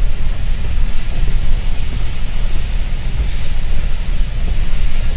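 Steady noise of a car driving through heavy rain, heard from inside the cabin: a low rumble from the road with an even hiss of rain and tyres on the wet road, swelling briefly a little past halfway.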